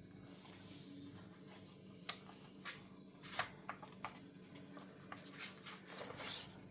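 Light handling noises during an unboxing: scattered small clicks and rustles from about two seconds in, over a steady low hum.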